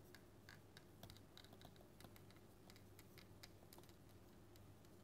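Faint, irregular clicks and taps of a stylus writing on a tablet screen, over a steady low hum.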